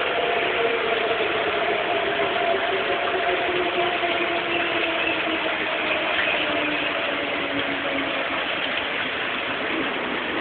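Outdoor tornado warning siren winding down: its two tones slide slowly lower in pitch together and fade out about eight seconds in, over a steady hiss.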